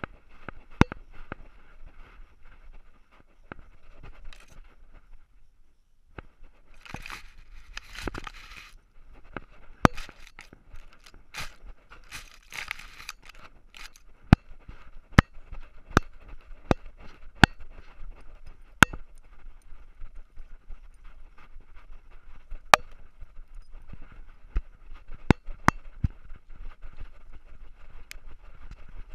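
A collar-mounted camera on a running dog, with sharp irregular clicks and knocks as the housing and collar jostle, and rustling where the dog pushes through grass about seven seconds in and again around twelve seconds in, over a steady faint hiss.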